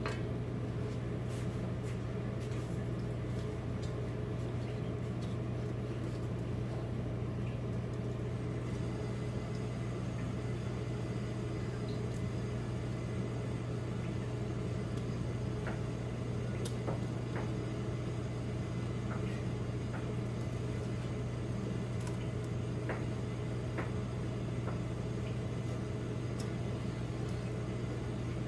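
A steady low hum, like a kitchen appliance or fan, at an even level, with a few faint scattered clicks of a utensil as cooked rice is mixed into mashed boiled radish.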